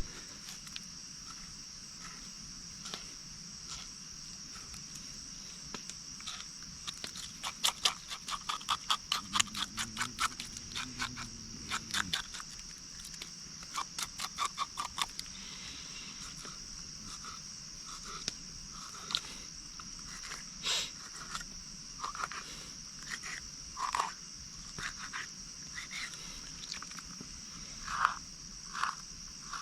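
Night chorus at a riverside: insects keep up a steady high-pitched trill, while frogs call in runs of rapid clicks, loudest about a quarter of the way in, with scattered single calls after.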